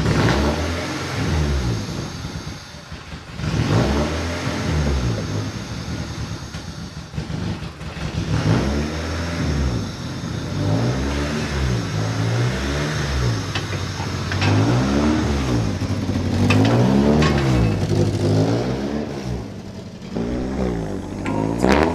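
Lifted Honda Civic sedan's engine revved up and down over and over through its homemade 3-inch side-exit exhaust stack. Each rev rises and falls in pitch, about a dozen times, with a short lull near the start.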